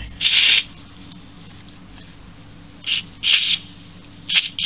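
Aerosol can of RP90 penetrating oil hissing in short squirts through its straw: one burst just after the start, two more around three seconds in, and a quick cluster of short squirts near the end.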